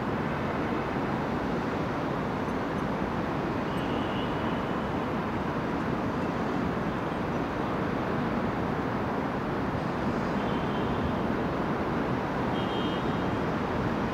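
Steady rumble of heavy diesel trucks running at a roadside construction site amid city traffic, with short, faint high squeals three times.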